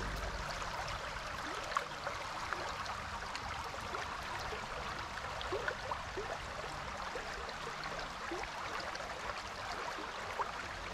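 Shallow forest stream flowing over riffles: a steady, even rush of water with many small plinks and gurgles scattered through it.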